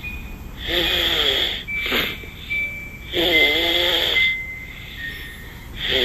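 Snoring: three loud, rough snores about two and a half seconds apart, each a drawn-out breath with a wavering low pitch. Between them a thin high whistle and one short tick can be heard.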